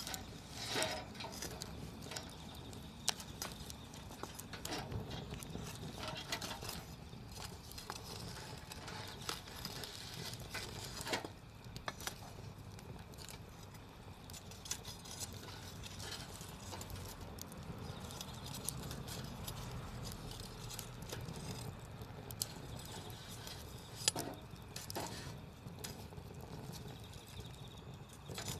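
Wood campfire crackling, with irregular sharp pops and snaps from the burning wood.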